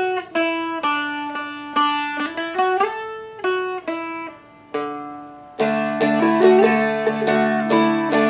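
Seagull Merlin played with a pick: single notes of a riff with slides between them. From about five and a half seconds in, fuller chords are struck in rhythm over a held low note.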